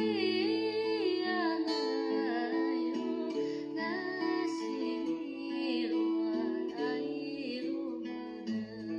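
Background music: plucked acoustic guitar under a gliding sung melody.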